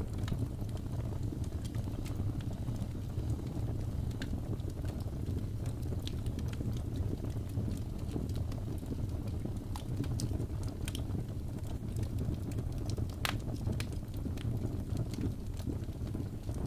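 Fireplace ambience: a steady low rumble of burning logs with scattered sharp crackles and pops, one louder pop about thirteen seconds in.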